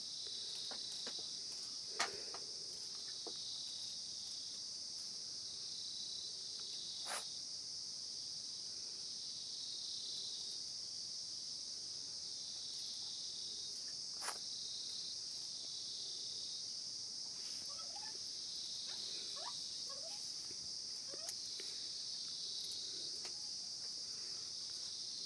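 Crickets chirping steadily, a high insect trill, with a few faint, sharp clicks scattered through.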